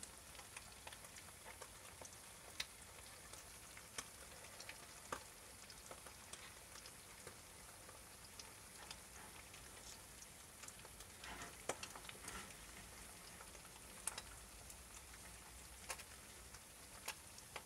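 Eggs frying in butter in a copper pan: a faint, steady sizzle with scattered sharp pops.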